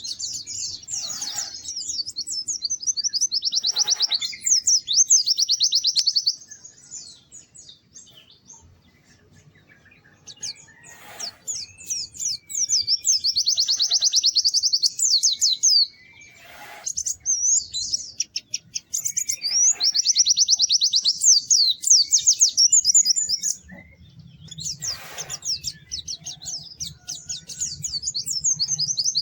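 White-eye (pleci) singing long, fast, high warbling phrases of rapid chirps, in four bursts of song with short pauses between them.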